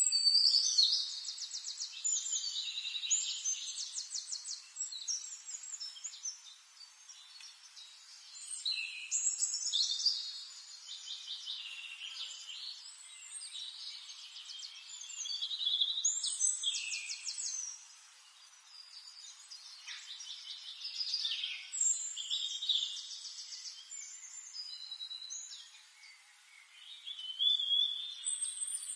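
Songbird singing: bursts of rapid high trills and chirps every several seconds, with quieter twittering between them.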